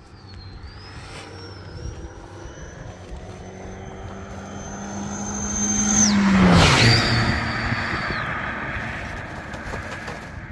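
A motor vehicle driving past: its engine hum and a high whine grow louder for several seconds, then drop sharply in pitch as it passes about six seconds in, and fade away.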